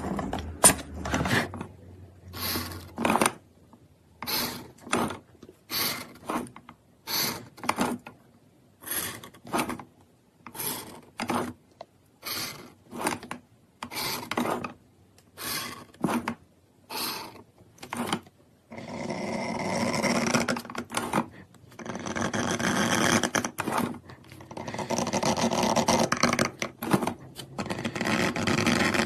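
A pointed scribing tool scratching straight lines into a small black square plate. For the first two-thirds there are short separate scrapes, one or two a second; for the last ten seconds or so there is a continuous run of quick scraping.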